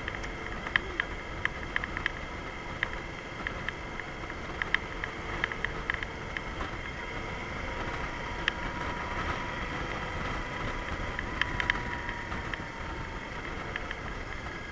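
Yamaha DragStar Classic V-twin motorcycle cruising, heard from a camera mounted on the bike: steady engine and road noise with irregular sharp clicks and rattles.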